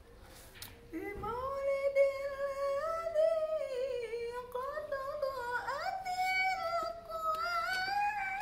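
A single voice humming a slow, wavering melody in long held notes, starting about a second in and gliding up to a higher note about two-thirds of the way through.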